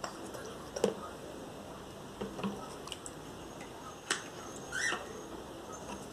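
Faint scattered taps and knocks of a plastic net against plastic water tubs while scooping toy fish, with a sharper knock about four seconds in.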